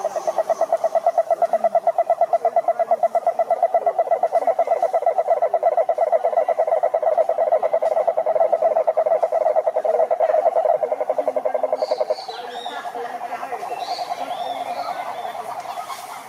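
A frog calling in one long, rapid pulsing trill that cuts off suddenly about twelve seconds in. Fainter frog calls and a few high chirps carry on after it.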